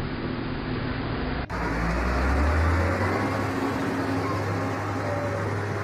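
A low engine hum, then an abrupt cut to a heavy diesel excavator engine running: a deep steady drone that swells for about a second and then settles.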